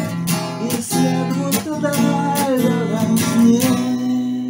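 Acoustic guitar strummed under a singing voice, recorded straight through a phone's microphone without processing. Near the end the strumming stops and a long final note is held and rings out as the song ends.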